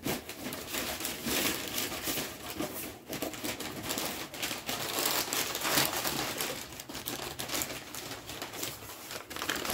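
Brown kraft packing paper crinkling and rustling as it is handled: a dense, irregular run of crackles.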